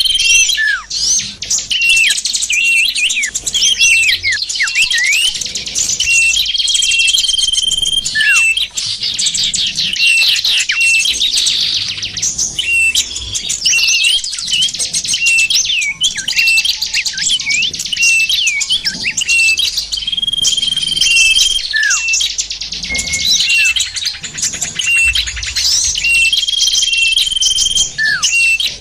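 A dense chorus of small birds chirping and twittering, with quick downward-sliding notes and a long even whistle that recurs several times. This is a pikat bird-lure call, played to draw small birds in for catching.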